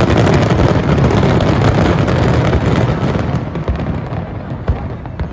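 Fireworks going off in a dense, continuous barrage of bangs and crackles, easing slightly in the second half, with one sharper bang near the end.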